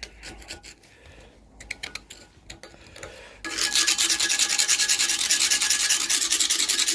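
Wire brush scraping on the old cast metal of a leg vice: a few faint pokes and scrapes, then about halfway through a loud, fast, rasping scrub that goes on steadily.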